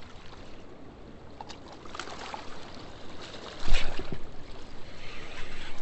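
Steady rush of river water below a spillway, with a few light clicks and one louder knock about two-thirds of the way through.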